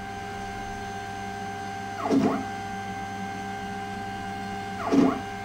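X-Carve Z-axis stepper motor driving the spindle carriage up and down with its driver's current potentiometer turned all the way up: a steady pitched whine. About two seconds in, and again near the end, it briefly gets louder and dips then rises in pitch as the motor reverses direction. At this current the stepper driver is close to thermal overload.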